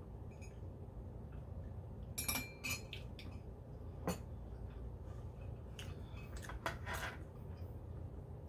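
A few light clinks and knocks as a ceramic mug with a metal straw in it is handled and set down on a wooden tray, the first cluster a couple of seconds in with a brief ringing tone, then single clicks later. A faint low hum runs underneath.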